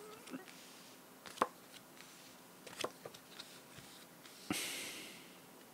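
Faint handling sounds in a quiet room: a few light taps and clicks, then a short breathy hiss about four and a half seconds in that fades within a second.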